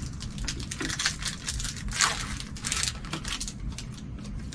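Trading cards and foil pack wrappers being handled and flipped through: a run of light, irregular clicks, rustles and crinkles, loudest about two seconds in.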